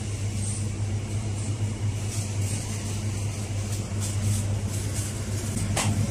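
Steady low mechanical hum of a supermarket's refrigeration and ventilation machinery, with one brief click near the end.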